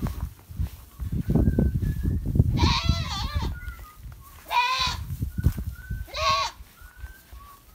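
Goats bleating: three calls, about two and a half, four and a half and six seconds in, the first long and wavering, over low thumping and rustling on grass as the herd moves.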